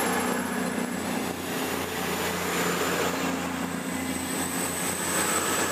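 Class 221 Super Voyager diesel-electric train departing, its underfloor diesel engines running steadily as the coaches roll past.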